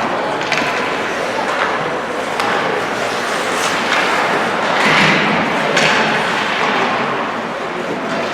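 Ice hockey play in an echoing rink: skates scraping on the ice and a few sharp clacks and thuds of sticks, puck and boards over a steady wash of rink noise.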